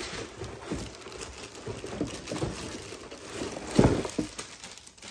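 Clear plastic packaging bags crinkling and rustling as the wrapped radiator and pump block are lifted out of a moulded pulp tray, with one low thump a little under four seconds in.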